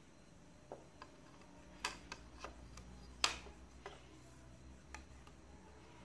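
Irregular light clicks and taps as a circuit board on an aluminium bracket is handled and turned over, about nine in all, the loudest a little past the middle.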